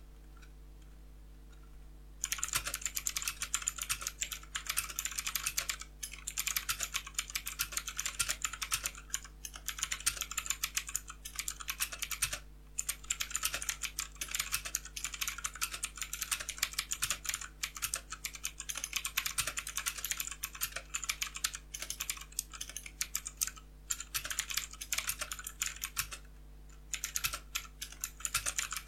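Fast typing on a Vortex Series VX5 mechanical keyboard with Outemu Blue clicky switches, giving a dense, rapid stream of sharp key clicks. The typing starts about two seconds in and pauses briefly a few times.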